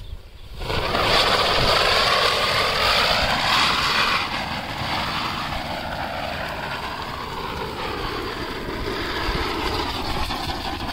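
A chakkar ground-spinner firework hissing and whirring as it spins, starting about half a second in. Its whine wavers up and down in pitch, loudest in the first few seconds and then a little weaker.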